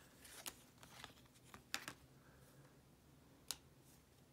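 Near silence, with a few faint taps and rustles of trading cards being handled; the sharpest tap comes about three and a half seconds in.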